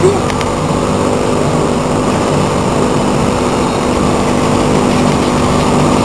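Mondial Turbine fairground ride running, heard from a rider's seat: a steady rumble with a constant hum through it.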